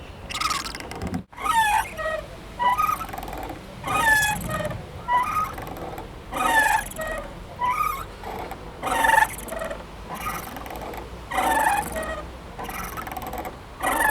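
Playground swing squeaking again and again as it swings: short creaky squeals that slide in pitch, with a scraping rasp, coming about every second at uneven intervals.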